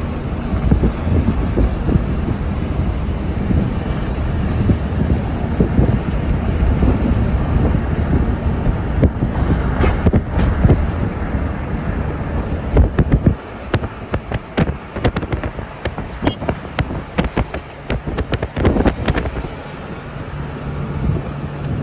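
Road and wind noise inside a moving car, with wind buffeting the microphone in a dense low rumble. About two thirds of the way through the rumble drops and a run of irregular crackles and knocks takes over.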